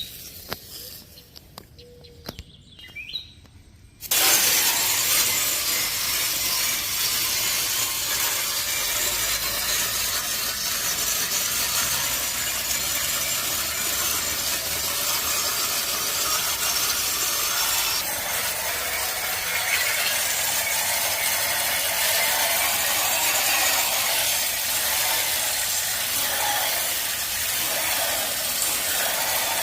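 A garden hose spraying water under pressure into a dirty air-conditioner condenser coil to wash it, a steady loud hiss that starts suddenly about four seconds in after a few faint clicks.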